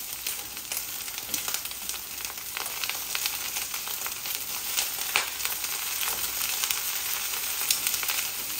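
Zucchini slices frying in avocado oil in a stainless steel skillet: a steady sizzle with frequent sharp pops and spits as the moist slices splatter.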